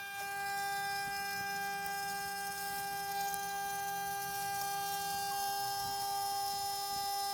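CNC 6040 router spindle running at a steady speed, giving a constant high-pitched whine.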